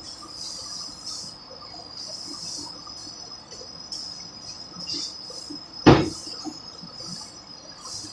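Steady high insect buzz with short hissing swishes about once a second, and one loud knock about six seconds in.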